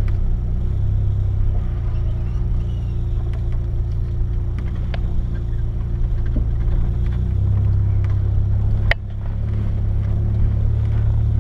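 Four-wheel-drive vehicle's engine running steadily at low revs while crawling a forest track. About nine seconds in there is a sharp knock and the engine note briefly drops.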